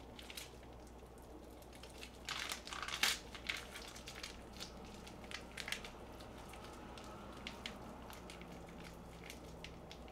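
Plastic soft-tofu pouch crinkling as it is squeezed by hand to push the tofu out into a pot: faint, irregular crackles, busiest about two to three seconds in.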